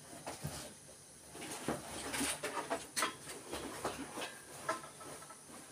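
Irregular clicks, knocks and rustling of small objects being handled, as someone rummages for a piece of wire.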